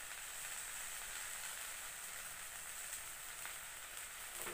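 Faint steady sizzling of rice and freshly added ghee in a hot steel kadai, with a few light ticks.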